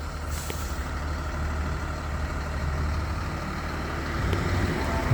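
A heavy vehicle's engine idling, a steady low drone.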